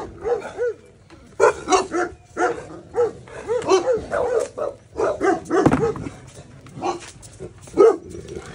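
Dogs barking repeatedly in quick runs of short barks, with a brief pause about a second in.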